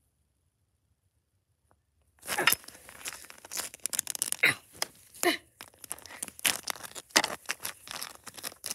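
Staged toy cat fight: plastic cat figurines scuffed and knocked on concrete, with a rapid run of hissing, rasping cat-fight noises that starts suddenly about two seconds in after near silence.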